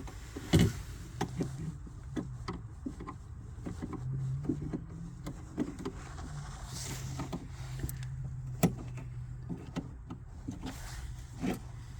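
Scattered clicks and light knocks of car seat belt and trim parts being handled, over a steady low hum that sets in about four seconds in.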